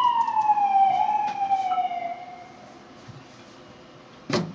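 Siren wailing, its pitch sliding slowly down and fading out over about two seconds. A single sharp knock comes near the end.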